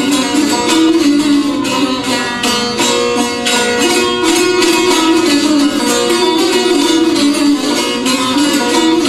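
Two long-necked lutes strummed and plucked together in a fast, driving rhythm, a folk tune carried on ringing steel strings.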